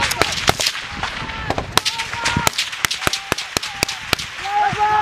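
Gunfire in a firefight: an irregular string of many gunshots, some close and loud, with men's voices calling out near the end.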